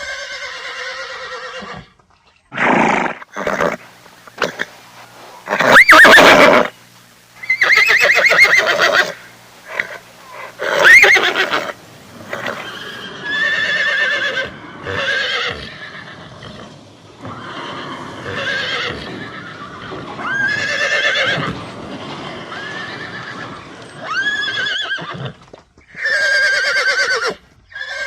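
A horse neighing and whinnying over and over: about a dozen separate calls with short gaps between them, most with a wavering, quavering pitch, some shorter and noisier.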